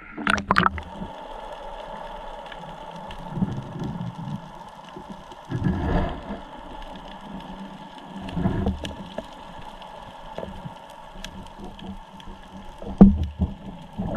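Sea water sloshing and splashing as crabs are caught by hand in the shallows. A steady faint hiss with scattered small clicks, broken by several louder low surges of water, with a sharp splash just after the start and the loudest near the end.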